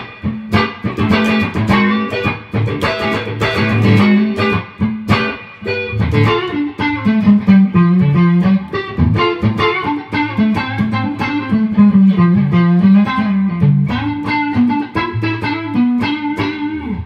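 Clean electric guitar, a Squier Stratocaster Deluxe played through a diode-bridge compressor pedal into a Mesa/Boogie Mark Five:25 amp on its clean channel. It plays a continuous melodic run of picked notes, with the compression keeping the levels smooth and even.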